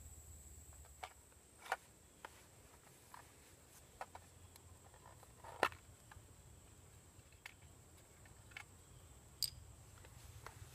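Scattered light clicks and taps of a small fire-kit tin and pouch being handled and opened, about ten in all at irregular intervals, the sharpest about five and a half seconds in.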